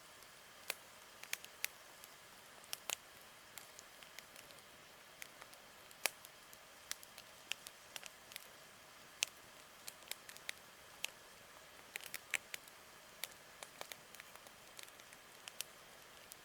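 Wood campfire crackling: irregular sharp pops and snaps, several a second at times, over a soft steady hiss.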